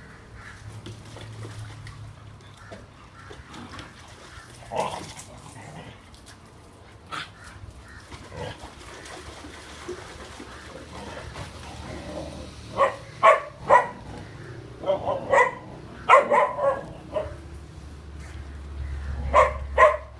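A dog barking in short calls: one about five seconds in, then groups of barks in the second half, three in quick succession and then several more.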